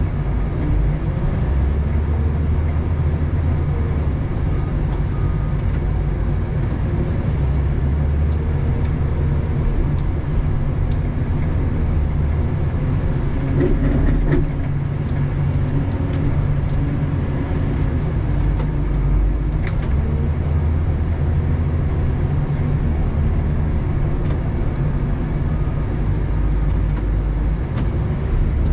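Doosan DL250 wheel loader's diesel engine running, heard from inside the cab as a steady low drone that rises and eases with the load while it pushes snow with a sectional plow. A brief clunk comes about halfway through.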